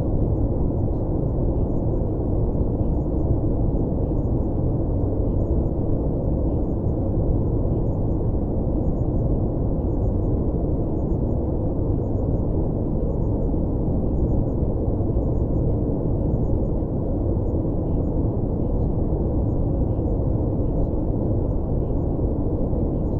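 Steady, deep rushing noise, the masking sound of a subliminal track, even and unchanging throughout, with faint high ticks repeating a few times a second.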